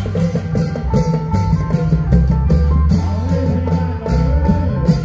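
Isan folk music from a klong yao long-drum troupe: steady drum beats under a repeating high melody.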